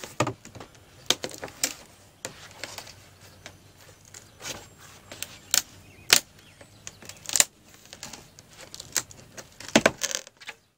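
Old, rotted wooden corner trim board being pulled off the wall by hand: irregular sharp clicks, cracks and knocks as it works loose. The loudest come about six seconds in and near the end.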